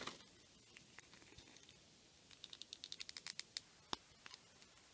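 Faint clicks and taps of small plastic action-figure parts being handled and fitted together, with a quick run of light clicks in the middle and one sharper click near the end.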